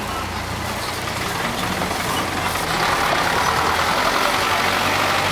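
Road vehicle engines running with a steady low hum, growing louder about halfway through.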